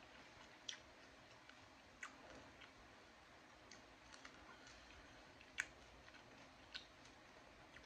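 Faint chewing of cold candy-coated grapes: a few soft, crisp clicks over near silence, the sharpest about five and a half seconds in.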